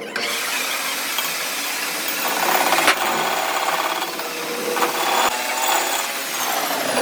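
A power tool working on metal: a steady, coarse grinding noise with a couple of sharp clicks, its pitch sliding down near the end.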